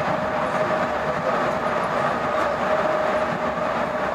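Busan Metro Line 4 4000-series rubber-tyred metro train running at steady speed: an even rumble of running noise with a constant whine held at one pitch.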